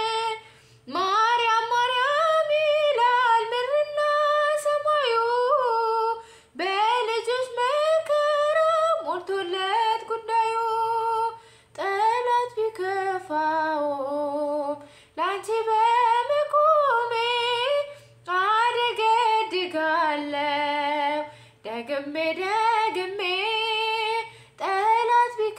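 A woman singing an Amharic Ethiopian Orthodox hymn (mezmur) solo and unaccompanied. She sings in gliding phrases of about three seconds, with short breath pauses between them.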